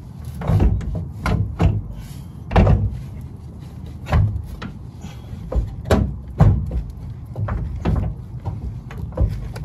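Irregular clunks and knocks as a car's rear trailing arm is handled and worked into place under the car. There are a dozen or so separate knocks, the loudest around the middle.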